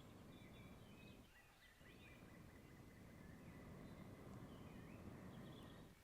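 Near silence: faint bird chirps and short trills over low background noise.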